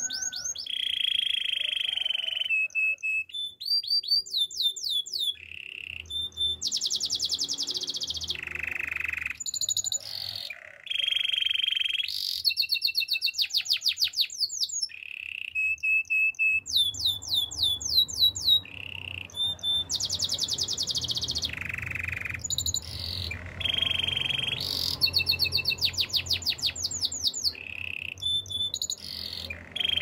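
Domestic canary singing a long, unbroken song. It moves from one phrase to the next every second or two: fast runs of repeated chirps, then steady rolling trills held on one pitch.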